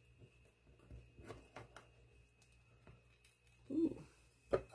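Faint scraping and light taps of a silicone spatula working a piece of crumb-topped coffee cake out of a glass baking dish, a short murmur of a voice near the end, then one sharp tap as the piece comes down onto the plate.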